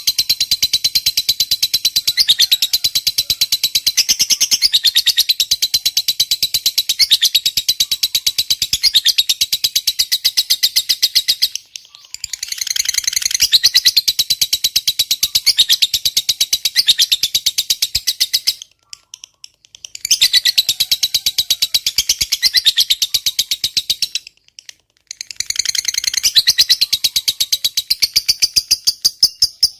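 Lovebird giving its long chattering call (ngekek panjang): a fast, shrill, rattling run of sharp chirps held for many seconds. It breaks off three times with short pauses.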